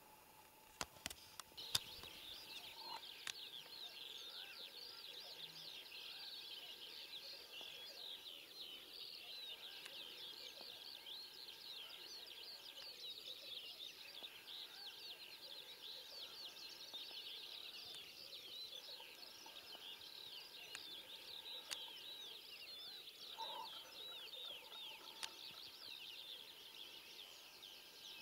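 Faint chorus of many small songbirds singing at once: a constant tangle of high chirps and trills. A few sharp clicks sound about one to two seconds in.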